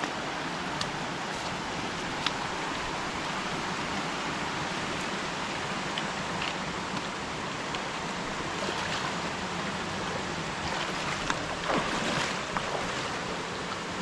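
Steady rushing of a waterfall and its stream, with a few short knocks in the last few seconds.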